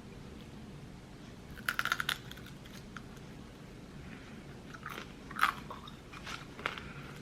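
A person biting into and chewing a mouthful of tofu salad close to the microphone: a quick run of crunches about two seconds in, then softer, scattered chewing clicks.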